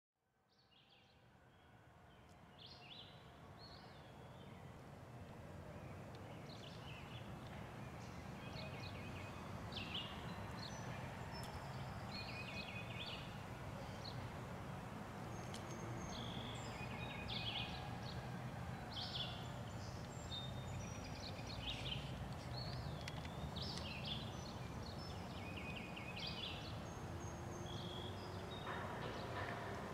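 Outdoor creekside ambience fading in over the first few seconds: several birds singing and calling in short chirps and trills throughout, over a steady low background rumble.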